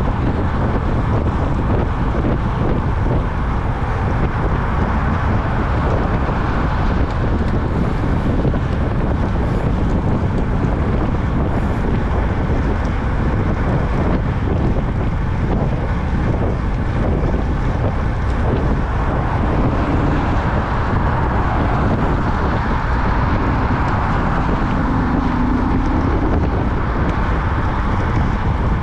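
Steady heavy wind rushing over the microphone of a camera on a road bike riding at speed, with road noise underneath.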